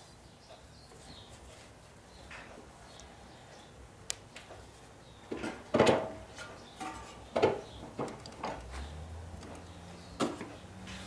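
A series of sharp knocks and clatters from tools and engine parts being handled during reassembly of a small engine, loudest about halfway through. A low steady hum starts near the end.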